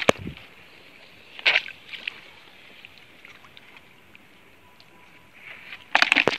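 Water splashing in a basin of small freshly caught fish as a hand moves among them. A sharp click comes at the start, a short splash about a second and a half in, and a quick cluster of splashes near the end.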